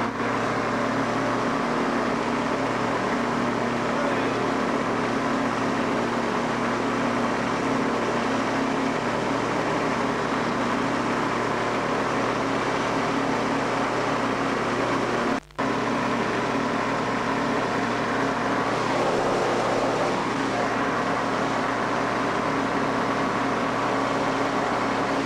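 Konig SD-570 four-cylinder two-stroke engine and propeller of an ultralight running steadily during takeoff and climb-out. The recording cuts out for an instant about two-thirds of the way through.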